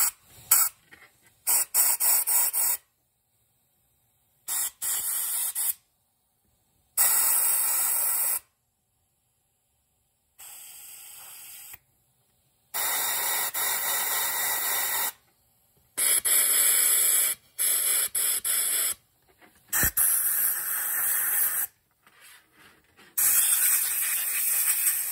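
Compressed air from an air blow gun blown through the ports and passages of a Honda GL1500 Goldwing carburetor body to clear them during a rebuild. It comes as about ten separate blasts of one to two seconds each, with silent gaps between them; one blast about ten seconds in is quieter.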